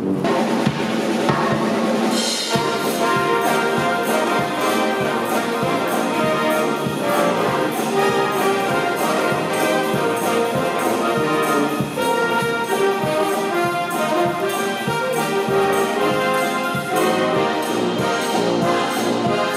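A live brass band playing: trumpets and trombones over a drum kit keeping a steady beat. The full band comes in about two seconds in.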